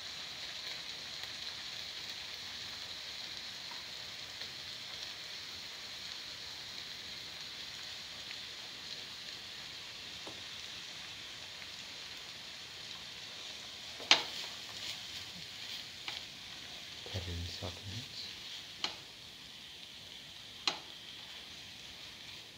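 Oil sizzling steadily in a frying pan around shallots and ginger under a mound of ground coconut-chilli paste, the sizzle slowly dying down. About two-thirds of the way through, the spatula knocks and scrapes against the pan several times as the paste is stirred in, the first knock the loudest.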